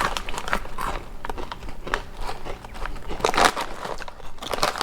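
Crunchy rolled corn tortilla chips (Takis) being bitten and chewed close to the microphone: irregular crackling crunches.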